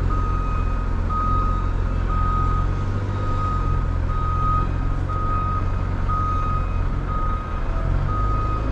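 Vehicle reversing alarm beeping a single steady tone about once a second, over the low steady running of a truck engine.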